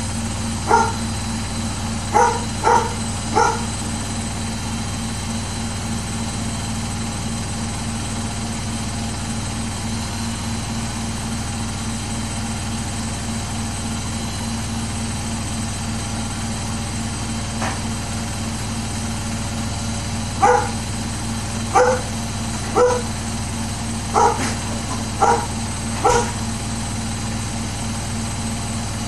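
Samsung WW80J5555FWEU washing machine running steadily on its Daily Wash 40°C cycle, a continuous hum. A dog barks over it: four short barks near the start, then about six more in a second burst about two-thirds of the way through.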